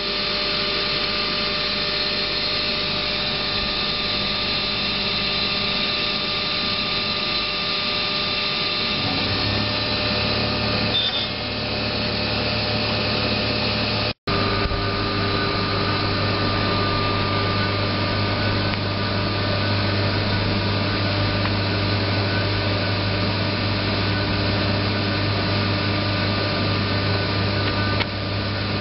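Muller Martini 3601 book saw running: a steady machine drone with several steady tones. A lower hum joins about a third of the way in, and the sound drops out for an instant near the middle.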